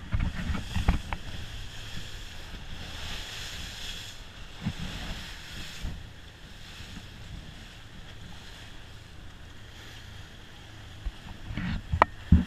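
Outboard-powered fishing boat running at speed: a steady low engine drone under wind buffeting the microphone and the rush of the wake. There are heavy low thumps of wind or handling in the first second and again near the end.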